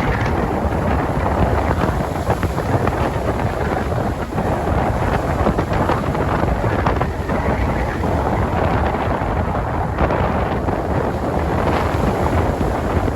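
Strong wind buffeting the microphone over the steady wash of ocean surf breaking on a beach.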